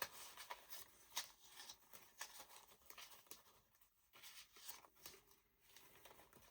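Near silence with faint, scattered rustles and light clicks of old paper being handled.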